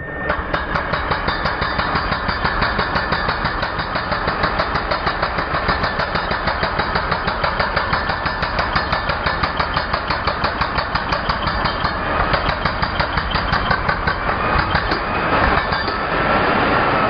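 Ingco 16 kg electric concrete breaker running, a rapid, steady hammering of blows over its motor noise; the blows stop about a second before the end.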